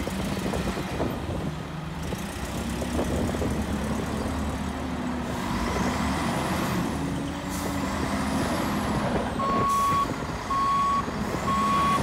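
Heavy-vehicle engine rumble with two high sweeping whooshes in the middle, then three steady beeps of a reversing alarm, about one a second, near the end.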